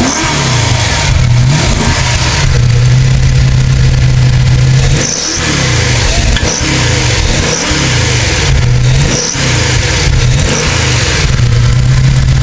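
Ford 5.0 V8 of a 1984 Ford LTD LX running at a raised idle on its first start after an Eaton M112 supercharger install, with the blower's belt not yet fitted. Engine speed rises and falls several times through the middle and holds steady near the start and near the end.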